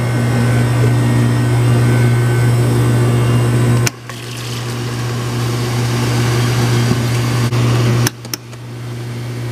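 Self-serve soda fountain pouring soda into plastic cups: a steady rushing pour over a loud, steady machine hum. The sound breaks off suddenly twice and picks up again.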